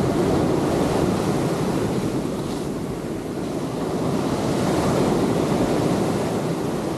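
Sea waves breaking and washing ashore, with wind buffeting the microphone; the surf swells twice, about a second in and again around five seconds.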